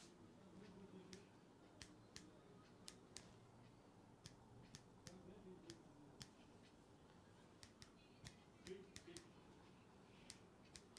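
Faint, sharp clicks at irregular intervals, about twenty of them, over a faint low background murmur.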